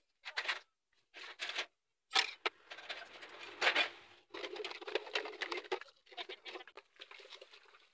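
Cups being washed by hand in a basin of water: irregular clinks, rubbing and sloshing in short bursts, with two brief gaps in the first two seconds.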